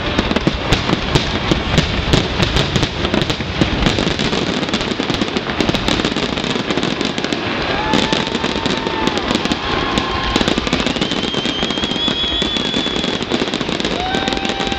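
Aerial fireworks shells bursting in a rapid, continuous barrage with dense crackling, many reports a second. A few long held whistling tones rise above it around the middle and again near the end.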